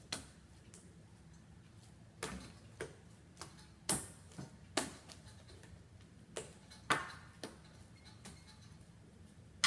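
Sticky homemade slime being squeezed and pulled by hand, giving sharp little clicks and pops at irregular intervals.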